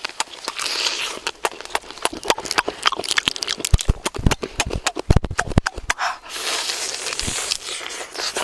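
Loud, close-up wet chewing and lip-smacking while eating cooked shellfish, a rapid run of clicking mouth noises. In between comes the crackle and rustle of shell being pulled apart by hand.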